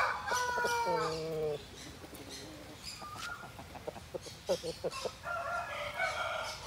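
Aseel rooster crowing, the tail of the crow falling in pitch in steps and stopping about a second and a half in. A few short clucks follow, then another drawn-out call near the end.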